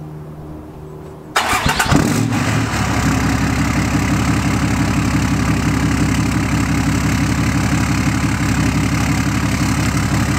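Cummins 6.7-litre inline-six turbo diesel in a 2007.5 Dodge Ram, emissions-deleted and straight-piped through a 4-inch exhaust, cranking and firing about a second and a half in, then settling into a steady, loud idle with an even pulsing beat.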